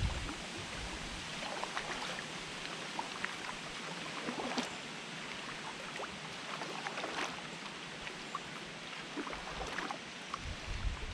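Kayak paddling on calm water: the blades of a Braca VII Max double-bladed paddle dip and pull through the water in alternating strokes, with small splashes and drips off the blades over a steady wash of water along the sea kayak's hull.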